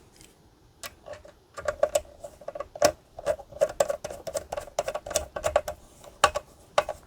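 Phillips screwdriver driving the single retaining screw into a desktop PC's sheet-metal cover: a run of small irregular clicks and scrapes, some with a faint metallic ring.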